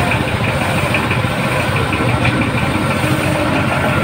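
Engine idling steadily, a low, even rumble.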